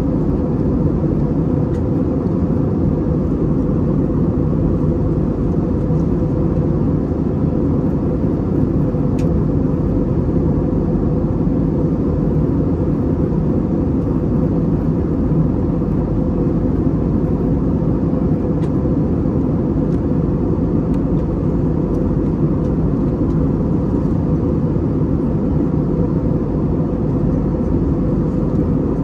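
Steady cabin noise of an Airbus A320neo in the climb, heard from a seat beside the wing: its Pratt & Whitney PW1127G geared turbofan engines and the rush of air over the fuselage make a loud, even, low drone with a faint held hum.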